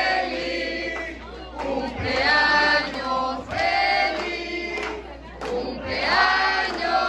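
A group of people singing a birthday song together, with the phrases swelling about every two seconds.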